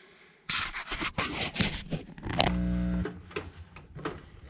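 Scraping, scratching and rustling handling noises with scattered clicks, broken about two and a half seconds in by a brief steady buzz lasting under a second.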